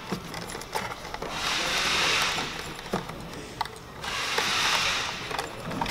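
Hand screwdriver backing screws out of a plastic RC truck body: two stretches of scraping, rubbing noise, with small clicks and taps of plastic parts between them.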